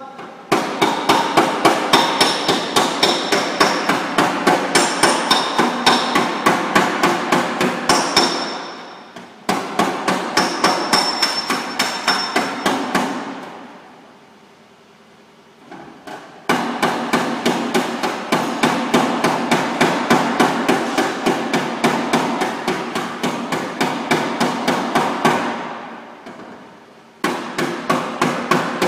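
Body hammer rapidly tapping out a dent in a Volkswagen Golf's front left fender, several light blows a second with a slight metallic ring. The blows come in long runs with a pause of a few seconds midway and a shorter one near the end.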